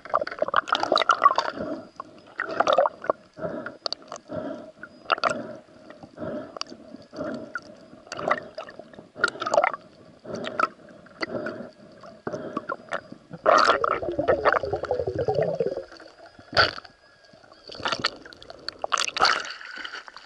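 Water heard through an underwater camera as a spearfisher moves: muffled swishes and gurgles repeating about every second, a longer gurgling rush about two-thirds of the way through, and a louder splash near the end as he breaks the surface.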